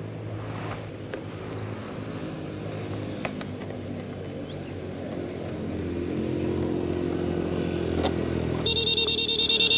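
A motorcycle engine approaching, its low hum growing steadily louder through the second half. Near the end a loud, rapidly pulsing high tone cuts in suddenly.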